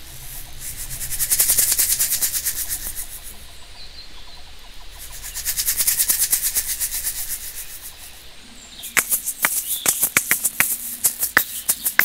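A pair of asalato (kashaka), small seed-filled shells joined by a cord, played by hand: two swells of fast rattling that rise and fade, then from about nine seconds in a run of sharp clicks.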